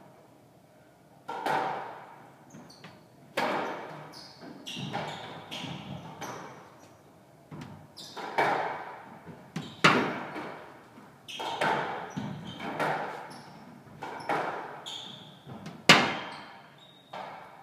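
A squash rally: more than a dozen sharp cracks of the ball off racquets and walls, about one every second or so, each ringing out in the enclosed court. Short high squeaks come between the shots, and the loudest crack falls near the end.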